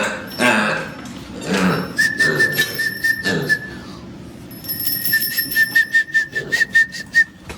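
A steady high whistle held for about a second and a half, then again for a little longer, with rapid clicking during the second one.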